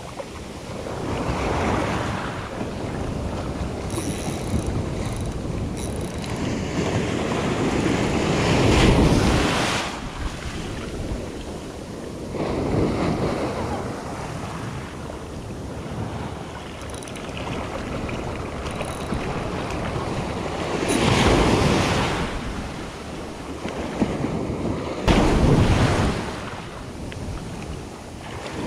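Small ocean waves breaking and washing around the wader's feet: a continuous rushing of surf that swells and fades every few seconds, with wind buffeting the microphone.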